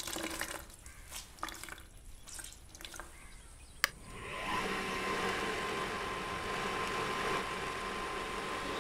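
Wet cloth being wrung out by hand, with water squelching and dripping. About four seconds in, a wall switch clicks and an electric motor starts up, building within about a second to a steady running noise with a high tone over a lower hum.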